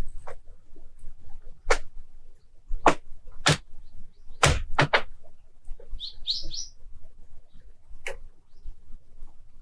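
Frozen lake ice cracking: a series of sharp pops and knocks from the ice sheet as it shifts, with several bunched together in the middle and one more near the end. A brief burst of high chirps sounds just after the middle.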